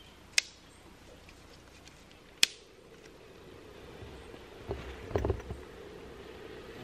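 Dry stick snapped by hand for stove fuel: two sharp cracks about two seconds apart. Low thumps and rustling near the end.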